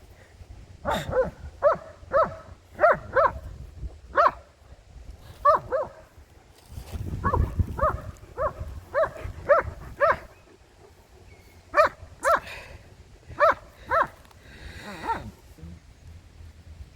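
A dog barking over and over in short, sharp barks, coming in quick runs of several barks with pauses between the runs.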